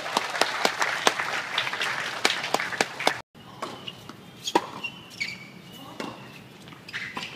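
Spectators clapping for about three seconds, stopping abruptly; then a tennis ball struck by rackets and bouncing in a rally, a few separate sharp knocks, with birds chirping.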